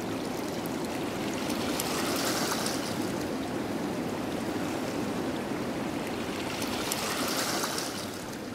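Shallow water at the edge of a tidal inlet, washing and trickling steadily, with two fuller swells about five seconds apart.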